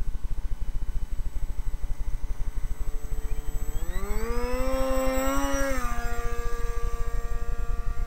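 RC model flying boat's motor and propeller throttling up for a takeoff run from the water: a whine that rises sharply about three and a half seconds in, holds loud while the boat planes, then drops in pitch and fades slightly as it passes and climbs away. A constant low rough rumble sits underneath throughout.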